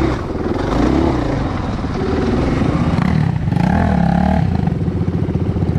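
2019 KTM 500 EXC-F's single-cylinder four-stroke engine running under way on a dirt trail, its revs rising and falling with the throttle.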